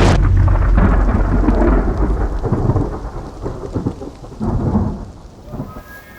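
A deep rolling rumble that opens with a sharp crack and fades out over about five seconds, crackling as it dies away.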